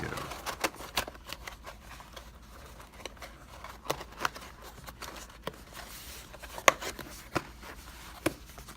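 Small parts and containers being handled and stacked into a box, making irregular light clicks and taps, with a sharper click about two thirds of the way through.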